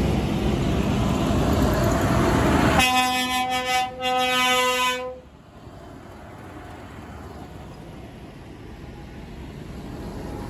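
Tractor engine passing close by, then a horn blown from a passing tractor: one pitched blast about three seconds in, broken briefly and lasting about two seconds before it cuts off. Afterwards only a quieter engine sound remains, growing again near the end as the next tractor approaches.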